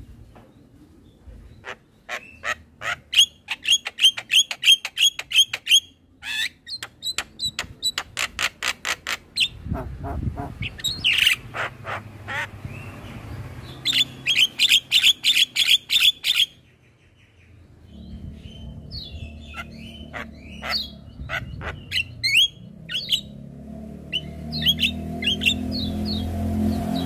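Javan myna calling: runs of sharp, rapidly repeated notes, about three or four a second, broken by pauses and mixed with harsher squawks. A low steady hum builds under the calls in the last third.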